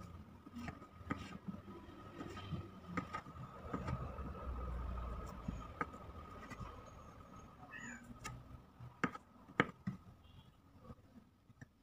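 Kitchen knife slicing through a sausage and knocking on a wooden cutting board: irregular knocks, with the sharpest few near the end, over a faint steady high hum. A brief high chirp sounds a little after the middle.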